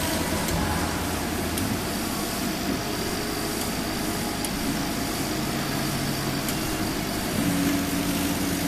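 CO2 laser engraving machine switched on and running, giving a steady low mechanical hum and whir; a low steady tone joins in near the end.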